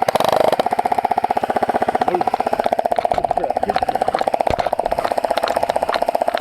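Steady mechanical hum of a motor running with a rapid, even pulse, close and loud, with a couple of sharp clicks about four and a half seconds in and near the end.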